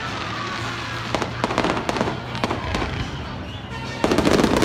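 Fireworks exploding in the sky, a string of sharp bangs and crackles, with a rapid volley of bursts about four seconds in.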